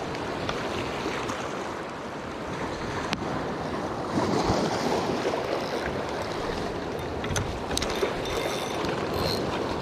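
Small waves washing in over a rocky, cobbled shoreline, swelling about four seconds in, with some wind on the microphone. A few light clicks near the end.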